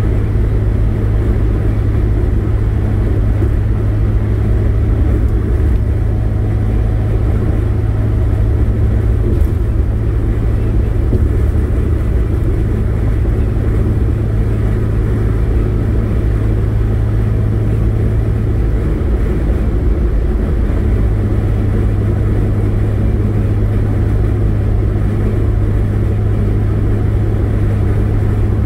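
Engine drone and road noise inside a car's cabin while cruising at freeway speed: a steady low hum over a constant rush of tyres and wind.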